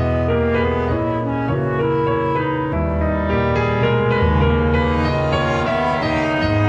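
Instrumental background music from a video-game soundtrack: piano over low bass notes that change every second or so.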